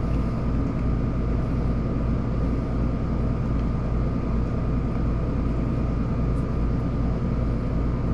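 Steady mechanical hum of a running machine: a strong low drone with a thin steady whine above it, unchanging throughout.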